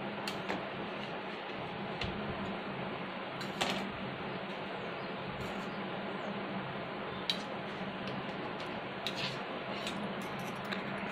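A few scattered light clicks of a metal spork touching a steel plate as it cuts into a soft sponge cake, over a steady hiss with a low hum.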